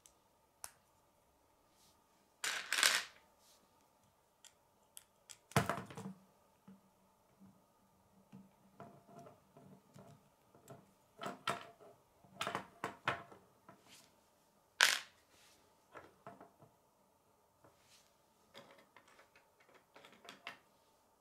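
Plastic K'nex construction pieces clicking and snapping as they are handled and pressed together, in scattered small clicks with a few louder snaps and rattles.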